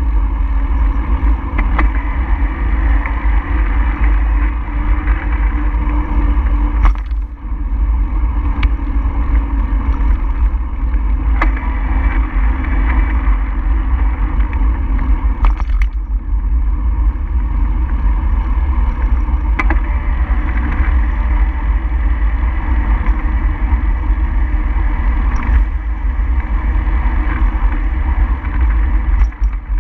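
Wind buffeting a microphone moving at speed, a loud steady low rumble with a hiss of road noise and occasional light clicks and knocks.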